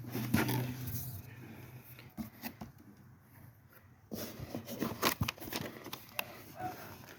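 Cardboard box and packing material being handled and opened: light rustling, scraping and small knocks, with a quieter pause in the middle.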